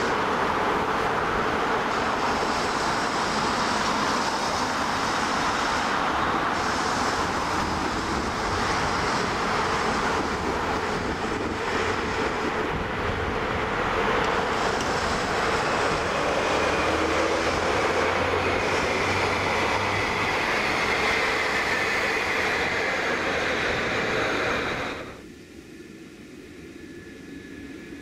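Steady rushing of wind and road traffic, with a faint high whine gliding slowly down in pitch in the second half. It cuts off abruptly a few seconds before the end, leaving a much quieter background.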